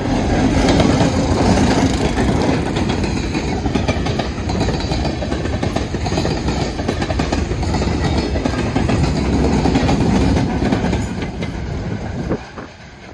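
Diesel freight train passing close by: locomotive engine running as the lead unit goes past, then tank cars with wheels clicking and clattering over the rail joints, and engine sound again as the trailing locomotive passes about ten seconds in. The sound drops away sharply near the end as the train moves off.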